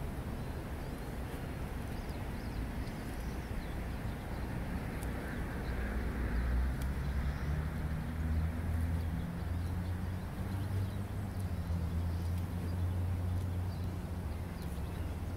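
Outdoor traffic noise: a motor vehicle's engine running steadily, growing louder about six seconds in and easing off near the end.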